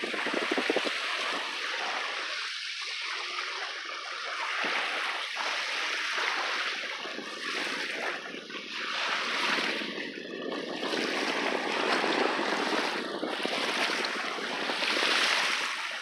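Small waves washing onto a sandy lake shore, mixed with wind gusting across the microphone; the rushing rises and falls in uneven swells.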